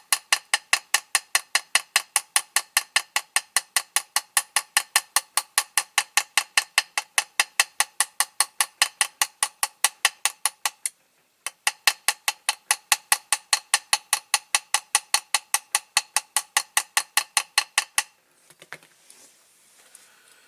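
Small hammer tapping steadily on the end of a toy car's steel wheel axle held in a vise, peening the axle end over to hold the wheels on. About four light ringing taps a second, with a short break about eleven seconds in, stopping two seconds before the end.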